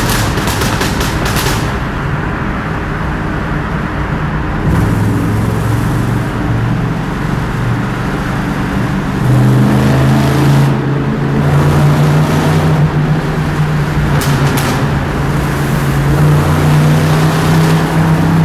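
1961 Chevrolet Impala's V8 engine running loud in a tunnel, its pitch stepping up about five seconds in and again about nine seconds in as it accelerates. A few sharp cracks near the start.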